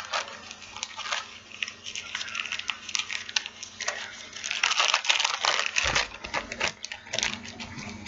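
Small plastic bags of nail-art stones crinkling and rustling as they are handled, with many quick, irregular crackles.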